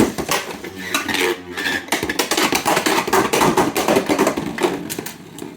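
Samurai Saber Beyblade X top launched with a sharp snap, then spinning in a plastic stadium with a dense rattling clatter over a steady spinning hum, fading toward the end. The pitch of the hum is the sign of spin speed: the higher it is, the faster the top.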